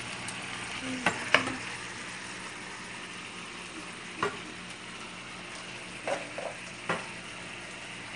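Pork, chicken and freshly added chopped tomatoes sautéing in a frying pan with a steady sizzle. A wooden spoon knocks and scrapes against the pan several times as the food is stirred.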